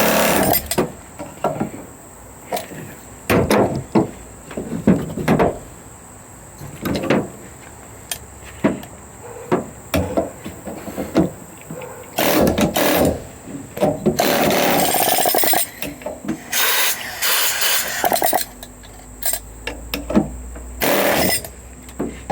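Pneumatic air hammer firing in repeated short bursts of varying length, with pauses between, as it drives the metal-sleeved rubber bushing out of the differential housing.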